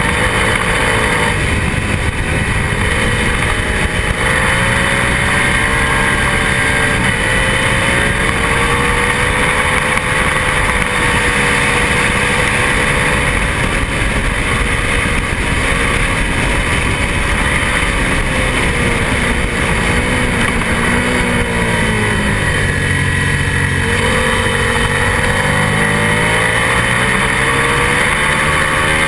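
Onboard sound of a twin-cylinder lightweight race motorcycle at racing speed, its engine pitch swinging up and down with throttle and gear changes, dropping for a couple of seconds about three quarters in before climbing again, over heavy wind rush.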